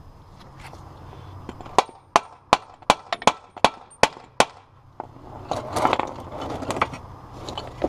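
Ball-peen hammer blows driving a new hard-rubber trailing arm bushing into a Honda Integra's rear trailing arm: about eight sharp strikes, roughly two to three a second. Then a few seconds of scraping and handling noise as the bushing is worked by hand.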